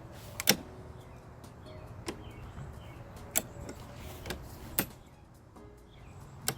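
Sharp clacks and knocks of mower parts being handled and fitted, about six in all, the loudest about half a second in.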